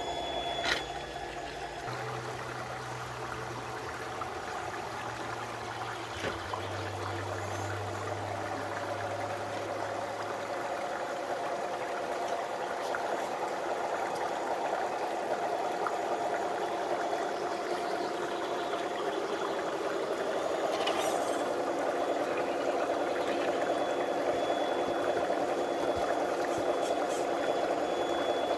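Shallow creek water running and trickling over rocks, a steady rushing sound. It grows a little louder in the second half, where the faint whirr of a radio-controlled crawler's electric motor may be mixed in.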